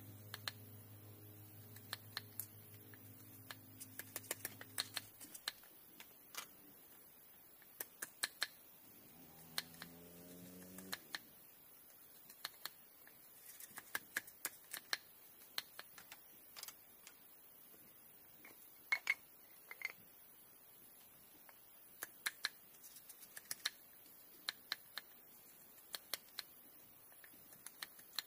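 Scattered sharp clicks and light taps at an irregular pace, from small hand work. Guitar music plays under them and stops about five seconds in, and a short pitched sound rising slightly comes in about nine seconds in and lasts about two seconds.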